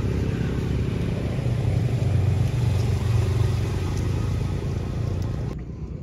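A motor engine running steadily with a low hum. It swells a little midway and cuts off near the end.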